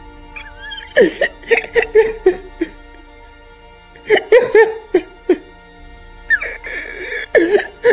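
A man sobbing in three bouts of short, gasping cries, about a second in, about four seconds in and near the end, over sustained background music.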